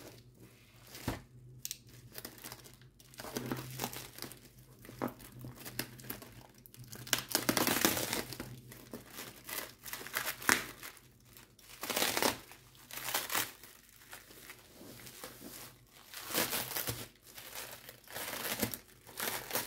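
A packaging bag being crinkled and torn at by hand, in irregular rustling bursts.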